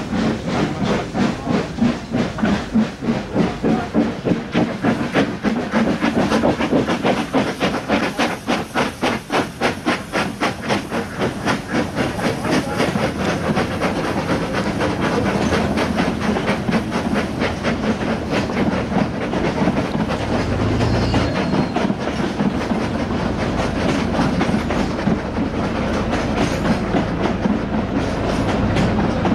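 Narrow-gauge steam tank locomotive working hard, its exhaust beats coming quicker as it approaches and passes beneath, followed by its coaches rolling by with a steady clatter of wheels on rail joints.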